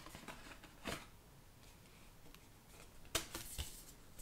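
Cardboard CD sleeve being handled and folded open: faint rustling and sliding of card. There is a brief rustle about a second in and a louder pair of rustles a little after three seconds.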